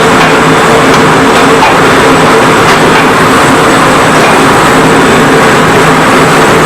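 Yogurt-marinated chicken sizzling loudly in hot clarified butter with browned onions in the pot, a dense steady crackle, with a steady low hum underneath.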